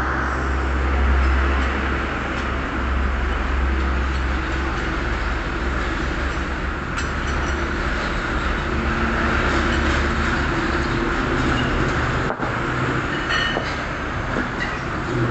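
Steady, loud machine-like rumble with hiss and a deep underlying hum, with a few faint light clicks.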